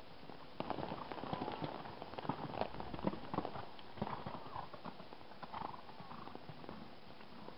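Hoofbeats of a horse cantering on wet sand footing, a run of dull thuds starting about half a second in, loudest over the next few seconds and fading near the end.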